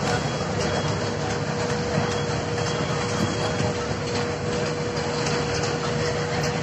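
Steady mechanical hum of fairground machinery, engine-like, with a steady whine held through it over a dense background din.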